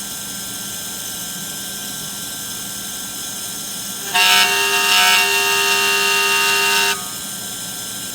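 DIY CNC engraver running with a steady machine hum. About four seconds in, its motors start a loud, steady, pitched whine that cuts off suddenly a little before seven seconds.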